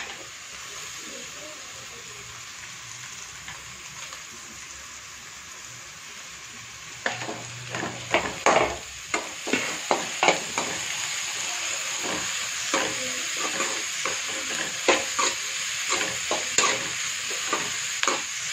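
Grated cabbage and carrot sizzling in hot oil with onions in a pan. A steady hiss for about seven seconds, then louder frying with a spatula scraping and knocking against the pan in quick stirring strokes.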